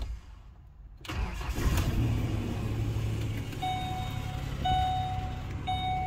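Ford Explorer engine cranking and catching about a second in, then running at a steady idle: it starts on a newly programmed key after an immobilizer bypass. From about halfway on, a dashboard warning chime sounds in repeated beeps about a second long.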